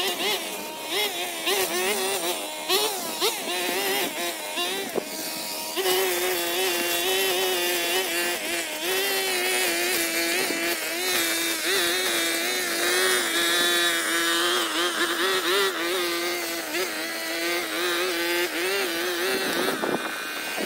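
Small petrol engine of a handheld garden power tool running at high speed, its pitch wavering up and down continuously. The sound turns brighter and steadier about six seconds in.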